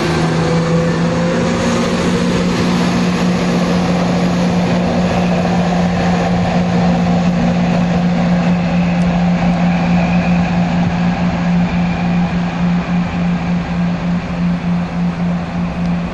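Train at the station platform running, with a loud, steady low hum over a noisy rumble.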